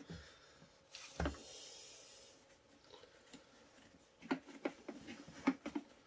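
Quiet handling of the plastic parts of a wet/dry vac and its filters: a single knock about a second in, a short soft rustle, then a run of light taps and clicks in the last two seconds.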